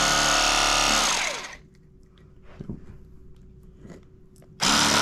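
Battery-powered KastKing Speed Demon electric fillet knife, its motor driving the reciprocating blades through a catfish. About a second in the trigger is let go and the motor winds down with a falling pitch, a few faint clicks follow in the lull, and near the end the motor starts again abruptly at full speed.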